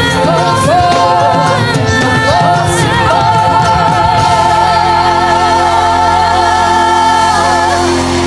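Pop song performed by a group of four singers with band backing. Several voices sing in harmony, then hold a long final chord with vibrato over sustained bass notes from about three seconds in.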